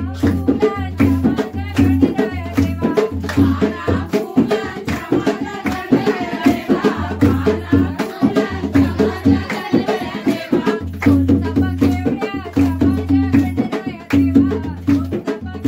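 Group of women singing a Gauri pheri folk song while clapping their hands together in a steady rhythm.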